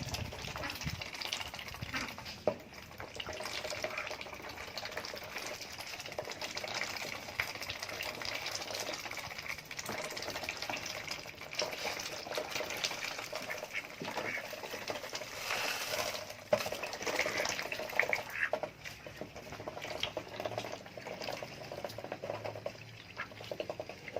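Domestic ducks dabbling with their bills in water or wet feed: a continuous rapid wet clicking and splashing.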